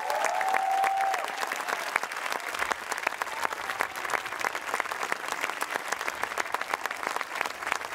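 Crowd applauding, with a few high cheers over the clapping in the first second.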